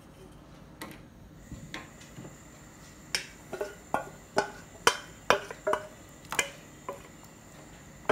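Milk payasam of macaroni and vermicelli heating toward the boil in a steel pan: large bubbles bursting at the surface. The pops come irregularly, a dozen or so sharp ones starting about three seconds in.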